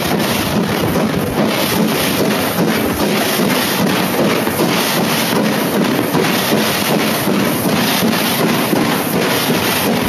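Steam locomotive running at speed, its exhaust beating in a fast, even rhythm over the continuous rumble of the train on the rails.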